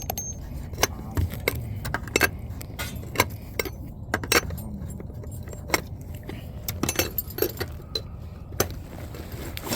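Light metallic clinks and clicks coming a few times a second at irregular intervals, like loose metal hardware jangling, over a steady low rumble.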